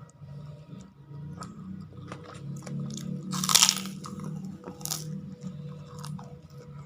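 Close-up eating: chewing with small crackles and clicks, and a loud crunch of crisp food about three and a half seconds in, with a shorter crunch near five seconds.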